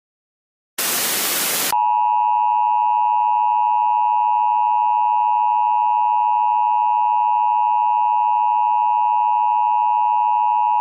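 A burst of static lasting about a second, then a steady two-tone emergency alert attention signal held for about nine seconds before cutting off suddenly.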